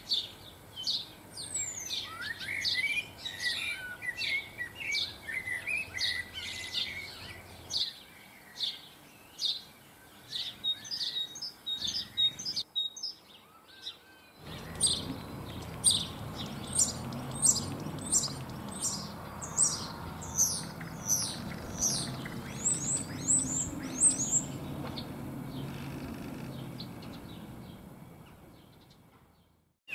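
Small garden birds chirping and calling: a dense stream of short high notes with a twittering song in the first part and a brief break about halfway. In the second half a low rumble sits under the calls, and everything fades out near the end.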